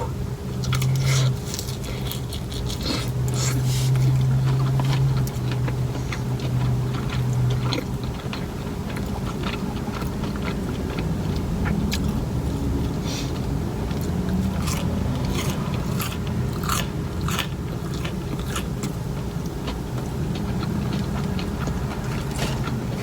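Close-up biting and chewing of a crispy fried chicken finger, with crunches and wet mouth clicks coming irregularly, over a steady low hum.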